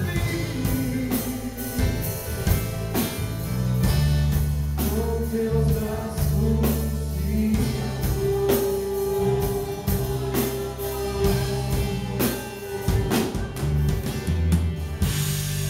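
Live gospel worship song: voices singing into microphones over a band with bass and drums, one long note held in the middle.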